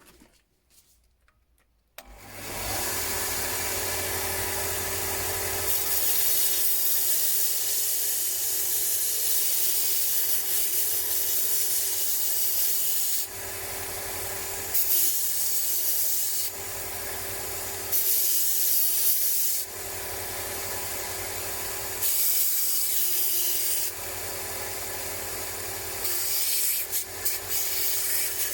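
An electric power tool's motor starts about two seconds in and runs steadily, with a loud abrasive scouring as a rusty steel wrench is pressed against it, easing off and coming back several times as the work is moved.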